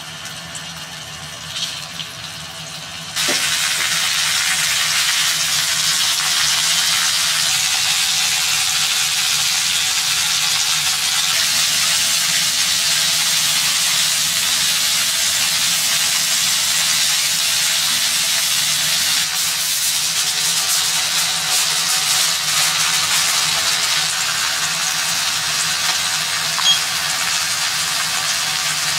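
Pork-wrapped vegetable rolls sizzling in oil in a frying pan. The sizzle is softer at first, jumps louder about three seconds in and then holds steady, with a light click near the end.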